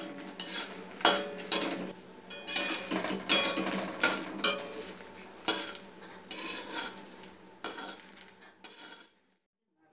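Steel kadai being scraped or scrubbed by hand, a run of irregular scraping and clattering strokes against the metal that stops about nine seconds in.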